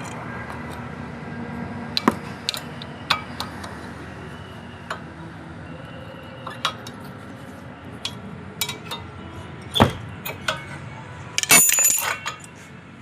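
Scattered sharp metal clinks and taps as brake pads and caliper hardware are handled and worked loose from a car's front disc brake caliper, with a quick run of clinks near the end.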